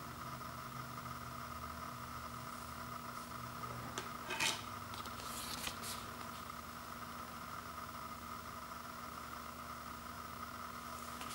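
Quiet handling of a cardboard CD digipak and its discs over a steady background hum: a short scrape and clack about four seconds in as a CD is laid on the wooden floor, then a few soft rustles of the card as the digipak is unfolded.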